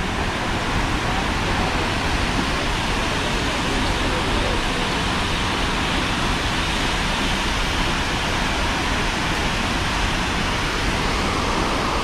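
Steady rushing of a large waterfall heard close by: an even, unbroken noise spread across low and high pitches.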